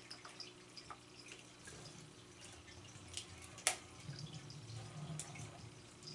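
Faint, irregular light taps and clicks of a cat batting a weighted wobble toy on a tile floor, with one sharper click about three and a half seconds in.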